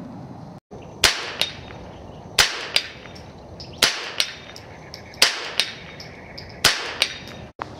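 .22 rimfire rifle shots, five in a row about a second and a half apart. Each shot is followed about a third of a second later by a fainter sharp knock, typical of the bullet striking a steel silhouette target.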